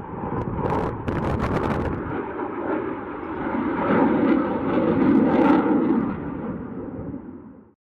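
Twin-engine fighter jet flying overhead: loud, rushing jet engine noise with brief sharp crackles about a second in. The noise swells to its loudest around four to six seconds in, then fades and cuts off suddenly near the end.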